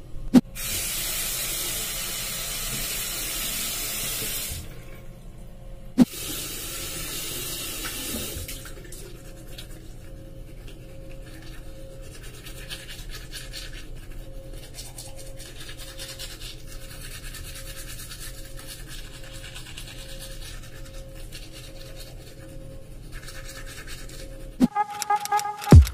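Water running from a bathroom tap into a sink, twice for a few seconds, each start marked by a click; then a manual toothbrush scrubbing teeth with a quick, scratchy rhythm. Music comes in near the end.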